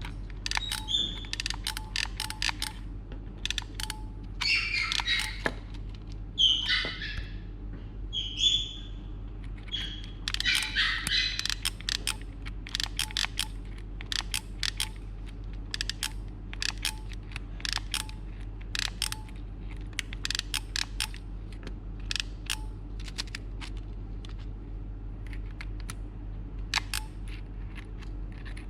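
Many irregular sharp clicks, with a few short chirp-like squeaks during the first half, over a steady low electrical hum.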